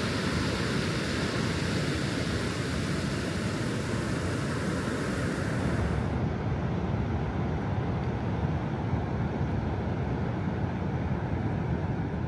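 Ocean surf on a beach: a steady rush of breaking and washing waves, duller after about six seconds as the high hiss drops away.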